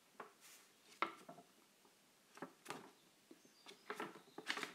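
Stiff paper of a hand-made accordion-fold book rustling and tapping as it is unfolded page by page: a string of faint, short crackles and taps, about eight in all.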